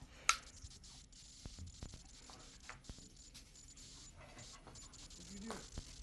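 A steady, very high-pitched electronic whine from a speaker playing a 'rat and pest repellent' tone. It starts abruptly about a third of a second in and holds one unchanging pitch.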